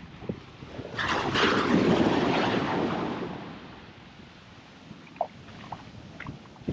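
A wave breaking and washing up the beach: a noisy rush that comes in about a second in, swells, then fades away over a couple of seconds, leaving a quieter wash.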